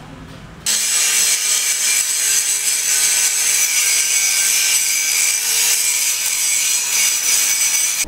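Handheld angle grinder grinding steel tube, a loud, steady, high-pitched hiss that starts suddenly under a second in.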